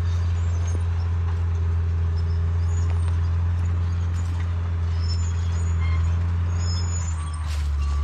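Bulldozer's diesel engine running steadily close by, a loud, even low drone. A short repeating beep starts near the end.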